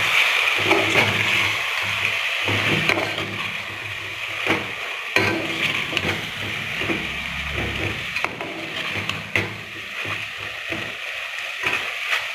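Metal spoon stirring and scraping a thick chicken and elephant foot yam curry in a metal pot, the masala sizzling steadily underneath, with irregular knocks and scrapes of the spoon against the pot.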